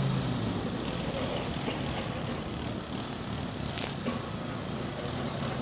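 A lawn mower engine's steady hum drops away about half a second in, leaving a low, steady rumble of engines further off, with a short hiss just before four seconds.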